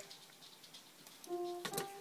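Piano played faintly in a room upstairs, with held notes coming in a little past halfway after a near-quiet stretch. A couple of light clicks sound among the notes.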